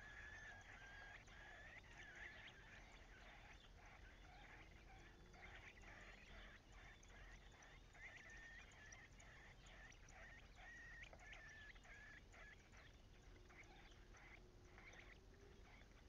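Faint, high cheeping of nestlings begging to be fed, many short calls in a quick, steady stream that thins out over the last few seconds.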